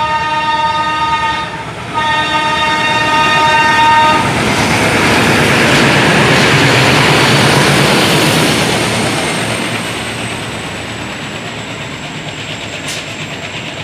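Horn of an Alco WDG-3A diesel locomotive sounding, breaking off briefly about a second and a half in and sounding again until about four seconds in. The locomotive, with its 16-cylinder ALCO 251 diesel engine, then passes close by, loudest a few seconds later, pulling away from a stop with a long BCNA freight train, whose covered wagons follow rolling over the rails, somewhat quieter near the end.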